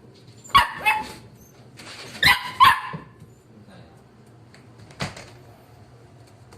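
Wire-haired dachshund puppy barking in short, high yaps: two quick pairs about a second and a half apart, then one softer bark about five seconds in.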